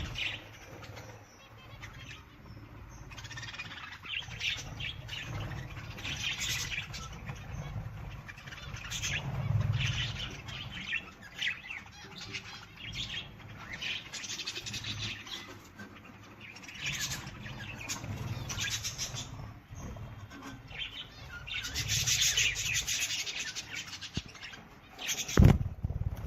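Birds chirping and calling, with many short calls one after another. A sharp thump near the end is the loudest sound.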